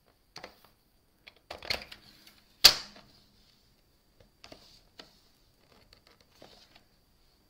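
Plastic paper trimmer being used to score cardstock: the carriage and clear rail rubbing and clicking, with a short scrape about a second and a half in and a single sharp snap a little under three seconds in, then scattered light clicks.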